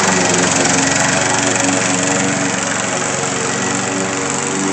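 Walk-behind gas lawn mower running steadily as it is pushed across the grass, getting a little quieter about halfway through as it moves away.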